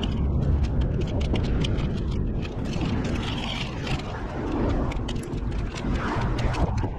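Wind buffeting the microphone while skating: a steady, heavy low rumble with many short clicks and ticks scattered through it.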